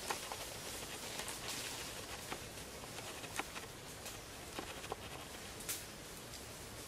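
Scattered light clicks and snaps of twigs and leaves as monkeys climb about in a tree, over a steady outdoor hiss.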